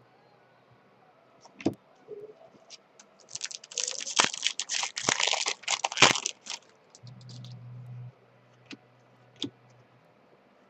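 A foil trading-card pack wrapper crinkling and tearing for about three seconds, with scattered sharp clicks of cards being handled before and after.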